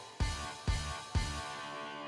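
Background music with a steady beat, about two drum hits a second. The hits stop about a second and a half in, leaving a held chord.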